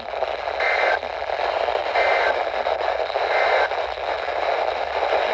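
Weather radio receiver hissing with heavy static from a weak NOAA Weather Radio signal. Through it come three faint, short bursts of SAME data tones about 1.3 s apart, the coded header that opens a Required Weekly Test.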